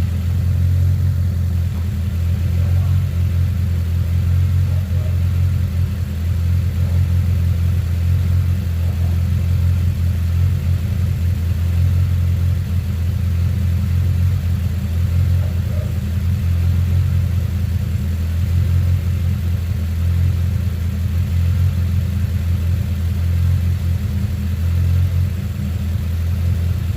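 Turbocharged Honda Civic EG four-cylinder engine idling steadily on a freshly replaced idle air control valve, with no surging.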